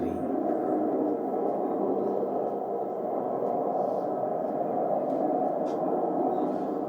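Steady, even rushing drone of a hovering craft running at slow speed.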